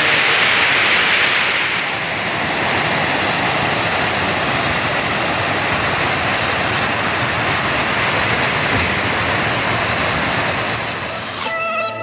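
Water pouring over a dam's spillway crest and crashing into the pool below, a loud, steady rush. The sound shifts slightly in character about two seconds in and fades near the end.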